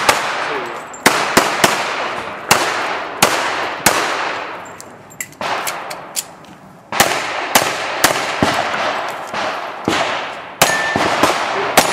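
Pistol fired in quick strings during a timed IDPA stage, each shot sharp with a short echoing ring; the firing pauses briefly a little past the middle, then resumes.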